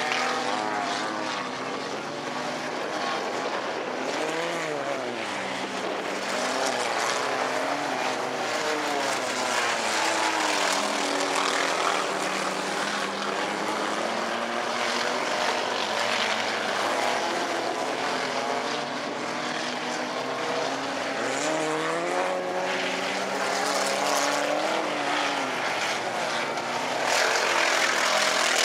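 Several four-cylinder bomber-class race cars running together on a dirt track, their engine notes overlapping and rising and falling in pitch as the drivers get on and off the throttle through the turns.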